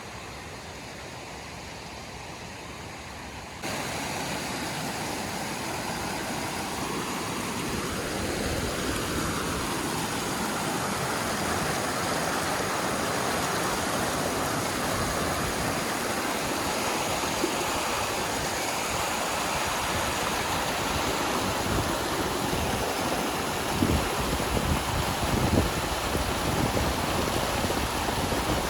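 Rushing water of a mountain stream: a steady, even hiss that steps up a few seconds in and swells slightly. A few sharp knocks sound near the end.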